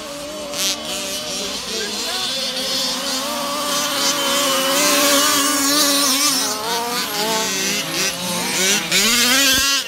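Several 1/5-scale RC cars' small two-stroke petrol engines revving and easing off together as the pack races across grass, a buzzing mix of overlapping pitches that grows louder a few seconds in.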